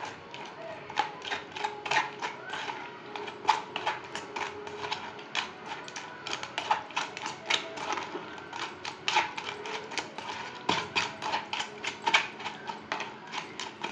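Metal spoon scraping and clicking against a metal mesh strainer while pressing soaked tamarind pulp through it: an irregular run of clicks and short scrapes, a few a second.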